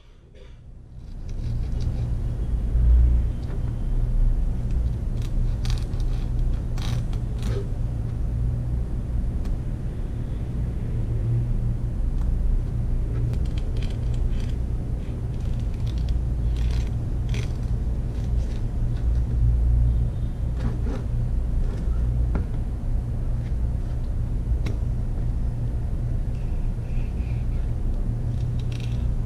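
A steady low rumble that comes in about a second in and holds. Over it are scattered faint scrapes and light taps from a chef's knife on a plastic cutting board as the skin is worked off halfbeak fillets.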